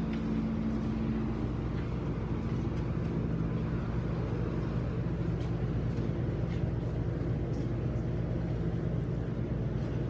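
Big fan running: a steady low mechanical hum with a few constant low tones, one of which fades about a second in.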